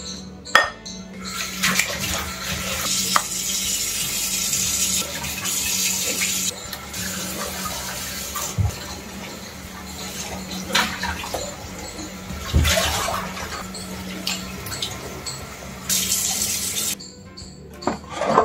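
Kitchen tap running into a steel sink as raw chicken pieces are rinsed in a glass bowl, with a few knocks against the sink and bowl. The water stops shortly before the end.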